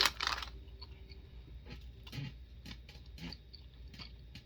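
Close-miked chewing with soft wet mouth clicks, and a short louder crunch right at the start.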